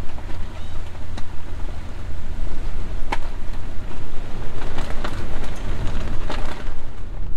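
A 44-foot Marine Trader trawler's diesel engine running steadily underway, a low rumble, with wind buffeting and a few short clicks and knocks.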